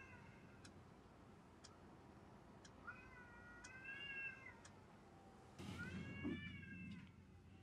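Faint, long drawn-out yowls of cats fighting outside: two caterwauls, one about three seconds in and another about five and a half seconds in, each rising and then falling away.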